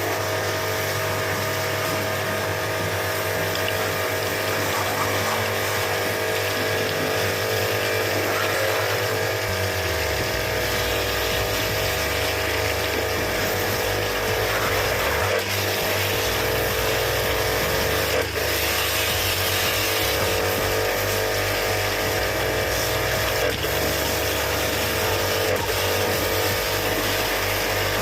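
An electric pump motor running steadily with water spraying, as from a pressure washer jetting the washing machine's parts; a few faint clicks along the way.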